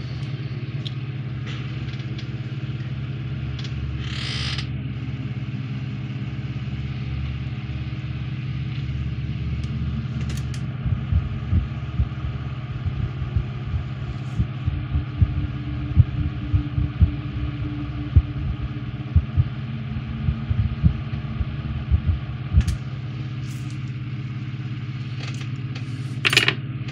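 Steady low hum in the room, with a brief hiss about four seconds in. About halfway through comes a run of soft, irregular low knocks as small tools and model parts are handled on the workbench.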